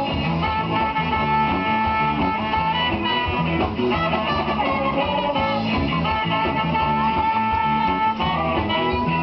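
Live band playing an upbeat number with drum kit, guitar and horns (saxophone and trumpet), with long held melody notes twice.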